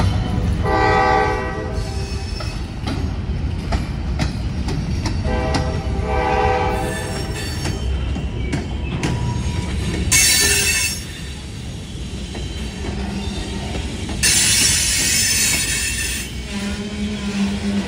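Freight train of loaded covered hopper cars rolling slowly past, a steady rumble with wheels clicking over rail joints and a switch. Early on, a locomotive horn sounds twice, each blast about a second long. Later come two bursts of high-pitched squealing hiss, the second about two seconds long.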